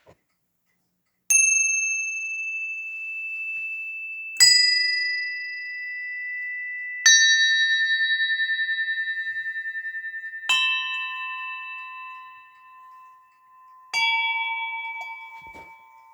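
Small bronze Orthodox church bells struck one at a time: five strikes a few seconds apart, each bell lower in pitch than the last. Each rings on and fades slowly, the middle one with a pulsing waver.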